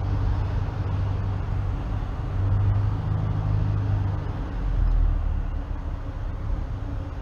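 Cockpit drone of a light training airplane's piston engine and propeller at reduced power on final approach, a steady low hum under a wash of wind and cabin noise that swells and eases a little.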